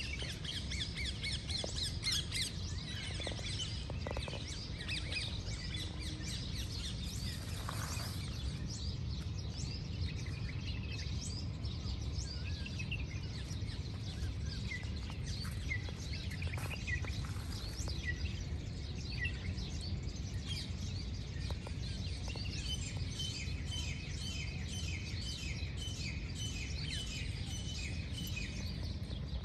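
Many small birds chirping and calling, busier toward the end, over a steady low rumble.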